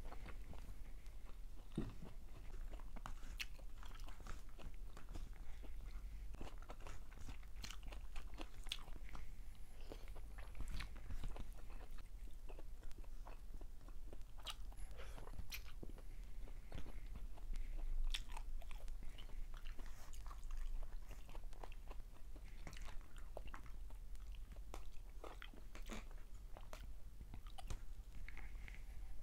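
Close-miked chewing of fried galunggong fish and rice, with irregular small crunches and clicks throughout.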